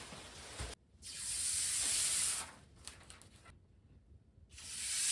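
Two high rushing hisses. Each swells up over about a second and then cuts off sharply: the first starts about a second in, the second near the end.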